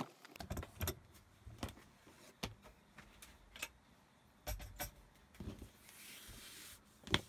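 Scattered light clicks and taps as a vinyl-and-leather strap is handled on a cutting mat, with a sharp knock at the start and another just before the end. About six seconds in, a soft rubbing as hands slide along the strap.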